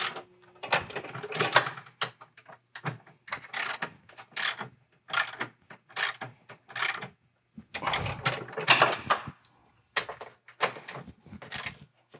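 Half-inch-drive ratchet wrench clicking in short bursts, one per swing of the handle, as it snugs up the hex nuts on the seat mount's brackets.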